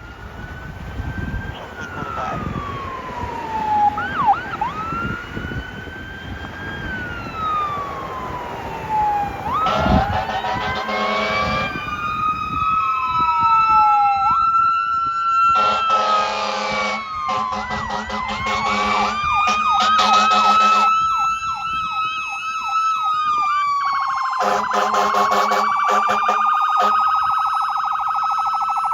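Fire engine siren wailing, its pitch rising and falling slowly, broken by bursts of quick yelping sweeps. The truck's air horn blasts over it: once about ten seconds in, in a series of long blasts from about fifteen to twenty-one seconds in, and again a few seconds later.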